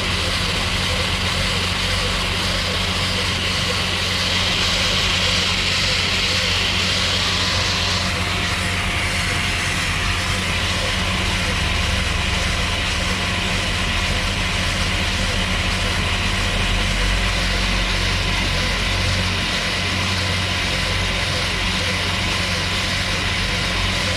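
Tractor engine running steadily, with a constant low drone and a hiss that eases about eight seconds in.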